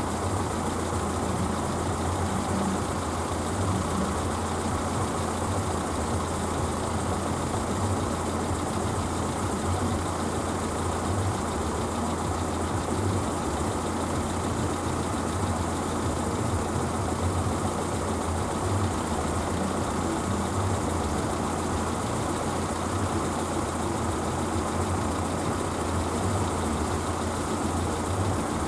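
AŽD 71 level-crossing warning bell, the classic electric bell, ringing continuously while the red lights flash, warning of an approaching train. A waiting car's engine idles underneath.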